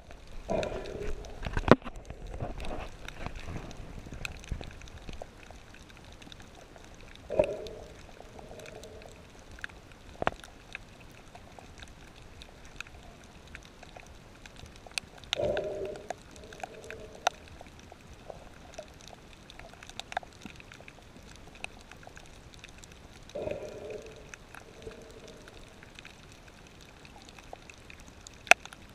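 Underwater sound through an action camera's housing: a rush of bubbles and churning water in the first few seconds, then scattered sharp clicks. Short low-pitched sounds recur about every eight seconds.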